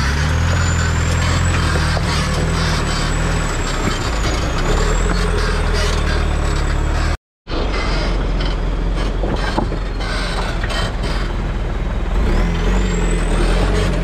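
Mahindra Thar CRDe's diesel engine running at low revs as the jeep crawls over rocks, with knocks of the tyres against stones. The sound cuts out completely for a moment about halfway through.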